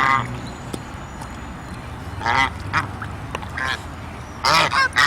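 Duck quacking: several short quacks with pauses between them.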